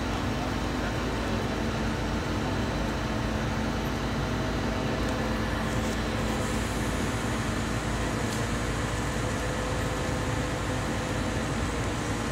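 Liebherr 500-ton mobile crane's diesel engine running steadily under load as it holds a large steel tank on its hook, a constant drone with a low hum.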